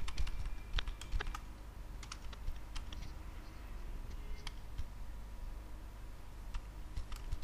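Computer keyboard typing: scattered, irregular keystrokes, bunched in the first second and a half and sparser after, over a faint steady low hum.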